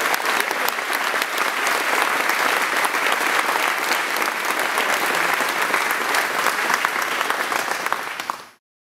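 A group of people applauding, with steady clapping that fades out quickly near the end.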